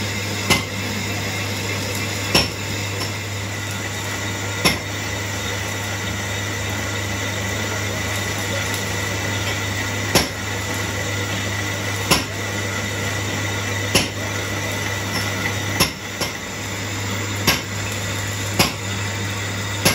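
Metal lathe running steadily while a cutting tool turns the face and bore of a disc harrow hub, with a low hum. About ten sharp metallic clicks come at uneven intervals over the top.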